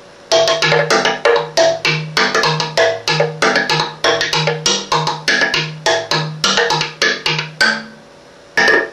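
Wooden tongue drum struck with two ball-headed mallets: a run of short hollow pitched notes, about three strikes a second, the tongues cut into the box top giving different tones. The playing stops for under a second shortly before the end, then starts again.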